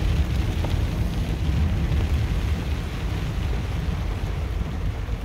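Inside a moving car in the rain: a steady low rumble of the car driving, with an even hiss of tyres on the wet road and rain.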